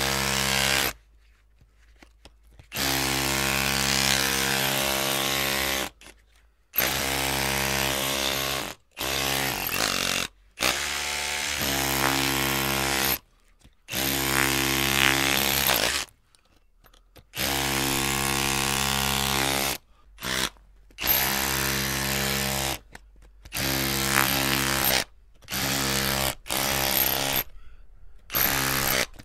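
Electric drill motor run in repeated bursts, switched on and off about a dozen times, each run lasting from under a second to about three seconds, with short silent gaps between them.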